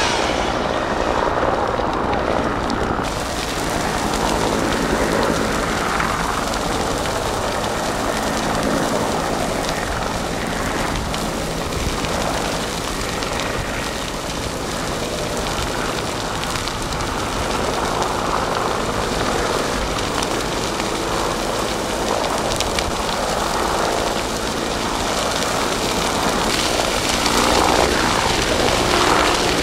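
Dry brush and grass burning at close range: the steady, crackling rush of a wind-driven flame front, with a low engine drone underneath.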